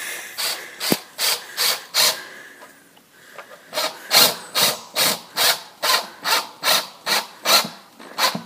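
A drill bit rasping in the plastic rim of a septic tank riser in even strokes, about two or three a second, as it works in and out at an angle. The strokes pause briefly near the middle.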